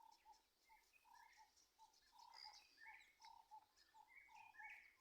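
Distant songbirds calling: one bird repeats short low notes, about four a second, the "kurr, kurr, kurr" call. A second bird adds higher chirps in short rising runs over the second half. Faint.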